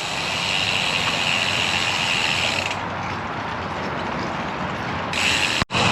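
Bicycle rear hub freewheel ticking rapidly as the rider coasts, over wind and tyre noise. The ticking stops partway through and starts again near the end, and the sound cuts out for an instant just before the end.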